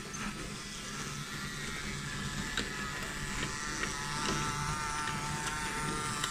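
Small electric motors of battery-powered toy trains whining as they run on wooden track, the whine growing louder after the first second or two, with a few light clicks.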